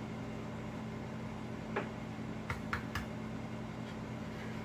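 A thin metal tool knocking against a small electric solder pot of molten lead while skimming dross: four sharp clicks, about two to three seconds in, over a steady low hum.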